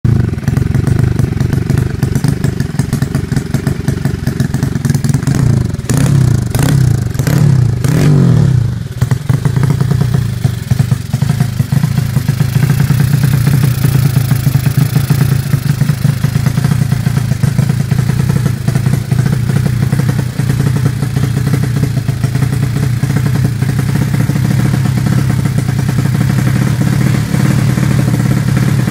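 Single-cylinder four-stroke engine of a Honda Supra underbone race build, fitted with Honda Sonic 150 valves and a racing carburettor, running through an aftermarket racing muffler. It idles, is blipped up about three times a few seconds in, then settles back to a steady idle.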